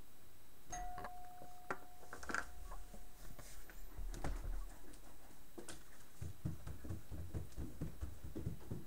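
A single steady tone held for about three seconds, starting about a second in, with a few clicks; then, in the last few seconds, a run of soft irregular thumps of footsteps on a carpeted floor.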